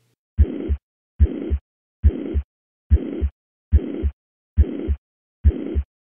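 Heart sounds heard at the cardiac apex: a high-pitched, uniform holosystolic murmur fills the whole gap between the first and second heart sounds on every beat. There are about seven beats at roughly seventy a minute, with silent diastoles. This is the murmur of mitral regurgitation.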